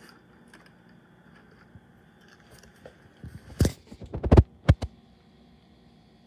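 Several sharp clicks and knocks in quick succession from about three and a half to five seconds in: hard objects being handled on a workbench.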